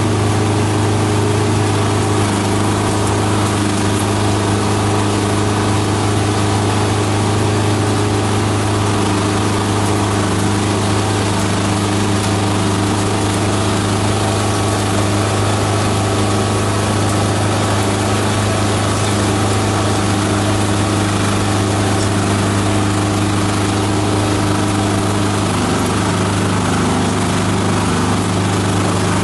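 Multi-purpose chopper-shredder machine running steadily while shredding green plant material, a loud, even mechanical drone with a strong low hum.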